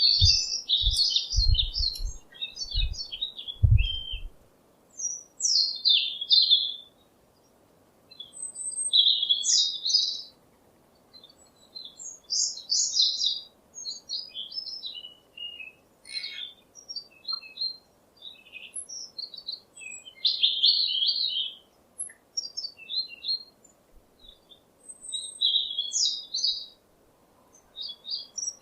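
Songbirds chirping and singing in short, high phrases of about a second each, separated by brief pauses. A few low thumps sound in the first four seconds.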